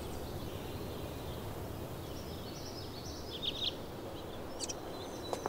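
Steady outdoor background ambience with a few faint, short bird chirps about three seconds in.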